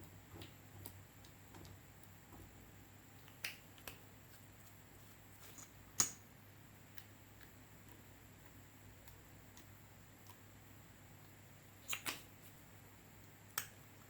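Clear slime being handled, giving scattered sharp clicks and pops with long quiet gaps between them. The loudest pop comes about six seconds in, with a quick pair near the end.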